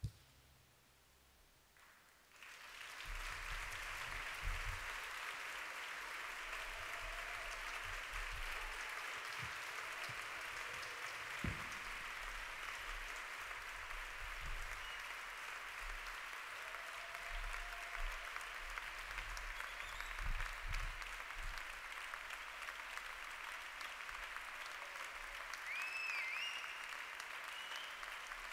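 A brief hush, then an audience breaks into applause about two seconds in, continuing steadily.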